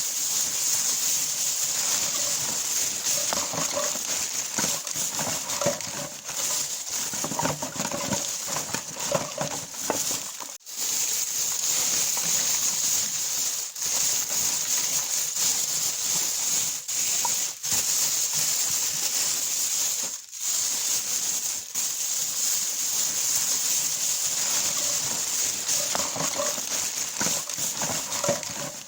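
Plastic bag being handled, crinkling and rustling steadily, with a couple of brief breaks.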